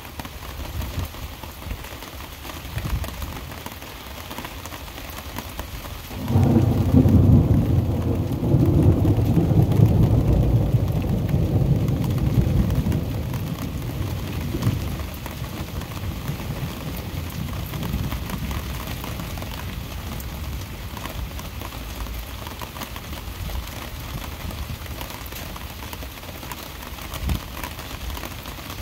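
Heavy rain falling steadily, with a thunderclap about six seconds in that rolls on as a deep rumble and slowly fades over the next ten seconds or so.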